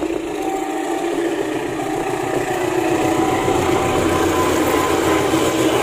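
KAI CC203 diesel-electric locomotive running as it passes close by hauling a passenger train, its engine sound growing steadily louder.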